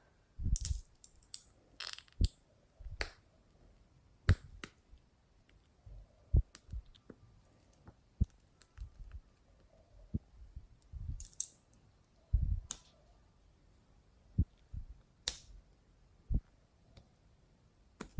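Slime being kneaded and pressed by hand: irregular sharp clicks and pops, some with short soft low squelches, coming about every second or two.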